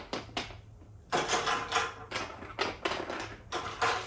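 Small roof-rack parts (base clips and tower feet) being picked up and knocking against each other and the hardwood floor: one click at the start, then a run of uneven clicks and clatters from about a second in.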